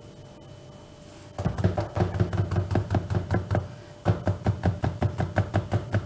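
A wire whisk working a stiff flour dough in a plastic bowl, knocking against the bowl in a quick, even run of about four or five knocks a second. The knocks start a little over a second in and pause briefly around the middle.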